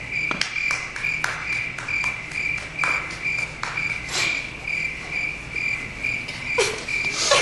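Crickets chirping in a steady pulsed rhythm, about two to three chirps a second: the comic 'crickets' effect that marks an empty, silent room. A few soft knocks fall here and there.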